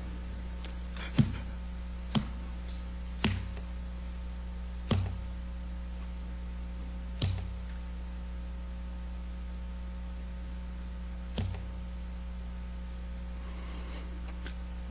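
Steady electrical mains hum with about six soft, isolated knocks spaced irregularly, most of them in the first half and the sharpest about a second in.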